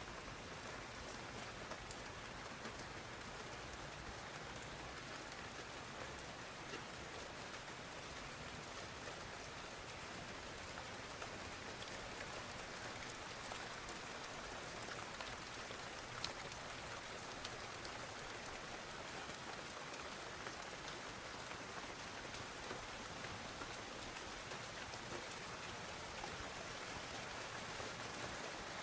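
Steady rainfall outdoors: an even hiss of rain with scattered individual drops ticking on surfaces, one drop a little sharper about halfway through.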